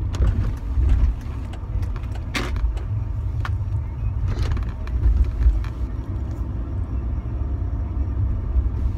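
Car driving, heard from inside the cabin: a steady low rumble of engine and road noise, with a few sharp light clicks, the clearest about two and a half and four and a half seconds in.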